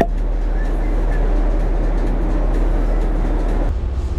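Steady low rumble of a motor yacht running underway: engine drone mixed with wind and water noise. The rumble shifts in character about three and a half seconds in.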